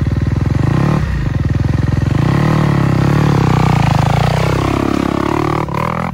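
Motorcycle engine running close by at fairly steady revs. Near the end its pitch sweeps down and then back up.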